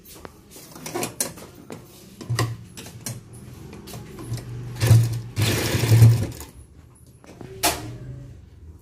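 Domestic sewing machine stitching a folded fabric hem in a few short runs, its low running hum starting and stopping, loudest midway. Light clicks and handling noise come before the stitching, as the cloth is folded and set under the presser foot.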